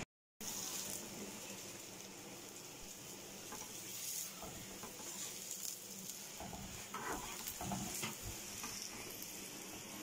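Stuffed paratha sizzling on a hot pan over a gas flame, a steady frying hiss, with a few short scrapes and taps of a metal spatula against the pan as the paratha is lifted and turned over.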